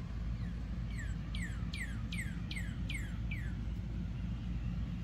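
A bird singing a run of about eight clear whistled notes, each sliding downward, at two to three a second, then stopping. Underneath is a steady low drone.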